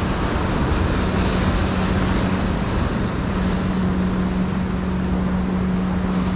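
Surf washing over jetty rocks, with wind on the microphone and the steady low hum of a passing motorboat's engine that grows stronger partway through.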